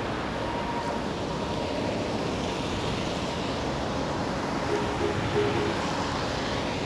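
Traffic on a rain-soaked street: a steady hiss of tyres on the wet road. A short pitched tone sounds about five seconds in.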